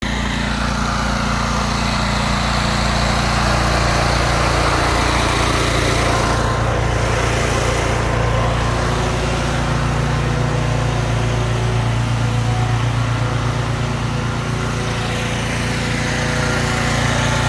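Small gas engine of a pressure washer running steadily at constant speed.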